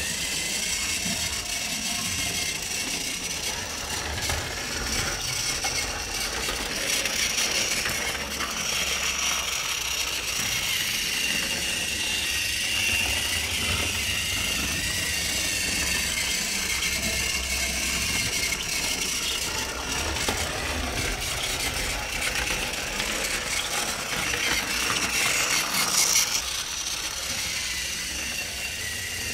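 Battery-powered TrackMaster Thomas toy engine running on plastic track, its small electric motor and gears giving a steady whir with a light rattle from the wheels and truck.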